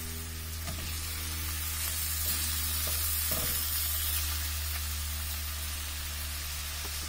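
Chopped onion, curry leaves and green chillies frying in oil in a stainless steel pan, a steady sizzle. It swells a little a couple of seconds in as chopped tomatoes go into the pan and are stirred, with a few light knocks.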